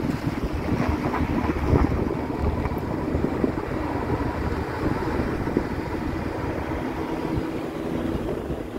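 Steady engine and road rumble of a moving car, with a low hum.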